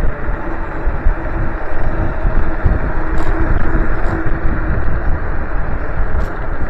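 Wind buffeting the microphone on a moving electric scooter, over a low road rumble, with a steady whine that fades in and out.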